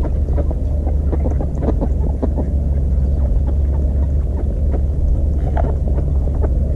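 Many small, quick taps and clicks of waterbirds pecking and dabbling at food on ice, over a steady low rumble.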